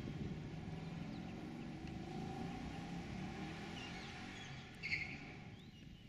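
2012 Ford Mustang Boss 302's 5.0-litre V8 on its stock exhaust, with the side-exit pipes still blocked by their restrictor plates, running with a tame note that fades away over a few seconds. A bird chirps about five seconds in.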